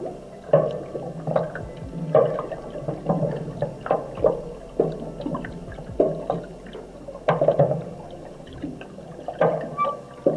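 Muffled water sloshing and gurgling around a submerged camera's housing, in irregular surges about once a second with occasional small knocks.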